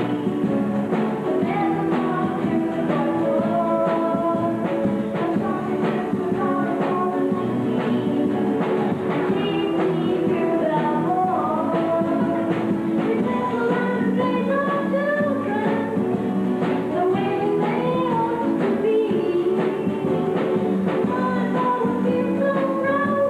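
A girl singing a song from a stage musical into a handheld microphone, over backing music with a steady beat.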